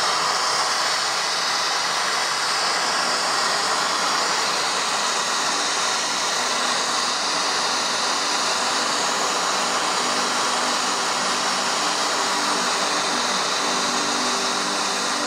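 Miniature steam locomotive's boiler being blown down: a loud, steady hiss of steam and water jetting from the blowdown valve, purging impurities from the boiler.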